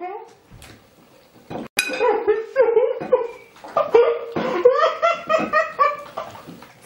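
Loud, sustained human laughter, with one sharp clink about two seconds in.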